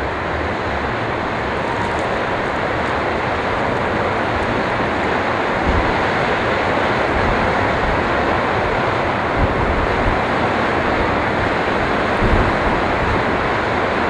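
Strong wind blowing in a steady rush, with low rumbling buffets on the microphone.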